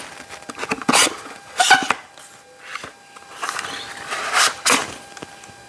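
Handling noise from unpacking vacuum cleaner accessories: a few short, irregular rubbing and scraping sounds as the parts and their packaging are moved about.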